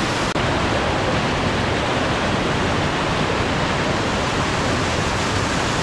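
Rushing white water of a small cascading stream close by, a steady even wash of noise.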